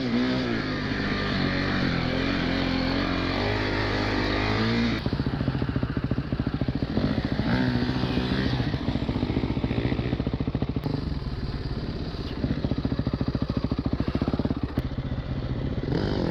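Four-stroke single-cylinder enduro dirt bike engine revving, its pitch rising and falling with the throttle for the first five seconds. It then runs with an even, rapid firing beat, with a short rise in revs a few seconds later.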